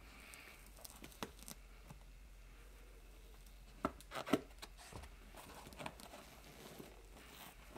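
Faint clicks and scrapes of pliers working hog rings loose from a car seat cover, with some rustling of the fabric; the clicks are scattered, with a short cluster about four seconds in.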